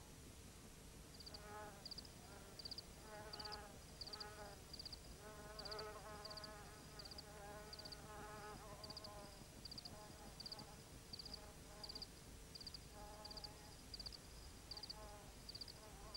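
Faint crickets chirping steadily, about two short trilled chirps a second, with sheep bleating now and then in the distance.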